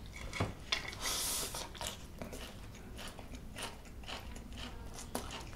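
Close-miked chewing of a mouthful of rice mixed with raw vegetables: crisp crunches and wet mouth clicks, with a longer crunchy stretch about a second in.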